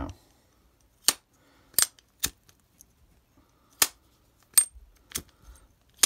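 Titanium Zippo-style lighter lid being flicked open and snapped shut: about seven sharp metallic clicks at uneven intervals, several with a brief high-pitched ring.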